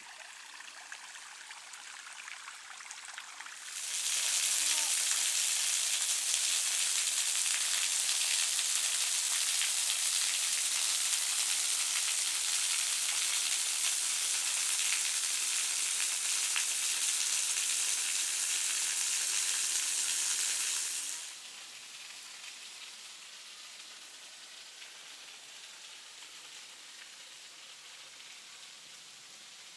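Steady hiss of rushing, falling water. It grows much louder about four seconds in, stays loud until about three-quarters of the way through, then drops back to a softer rush.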